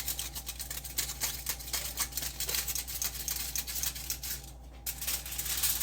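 Raw bacon strips being cut in half: a fast run of short scraping, clicking cutting strokes, with a brief pause about four and a half seconds in before a last burst.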